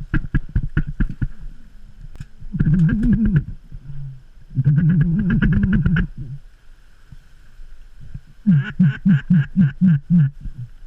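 Duck quacking in mallard style: a rapid clicking chatter at the start, two drawn-out quacks around three and five seconds in, then a run of about seven quick quacks near the end.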